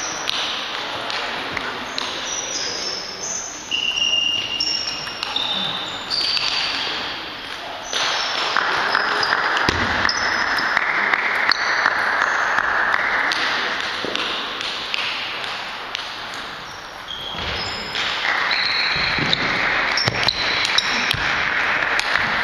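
Table tennis ball clicking back and forth off the bats and table in rallies, with short high squeaks between hits, over steady background noise of a busy sports hall.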